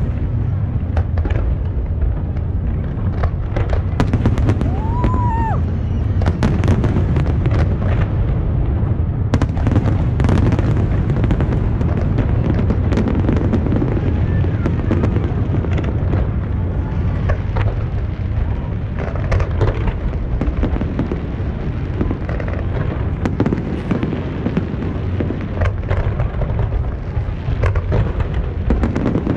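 Aerial fireworks going off in a continuous barrage of booms and crackling bursts over a steady rumble. A short whistle rises and dips about five seconds in.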